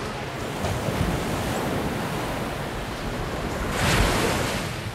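Waves and rushing water in a steady wash, with a louder wave crashing against an eroding mud bank about four seconds in.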